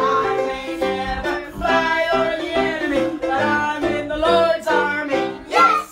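Voices singing a children's Sunday school action song with upright piano accompaniment.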